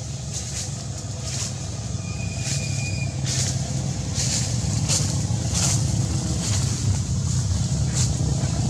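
A vehicle engine's low steady hum, growing louder, with short high-pitched ticks scattered throughout and one brief high whistle about two seconds in.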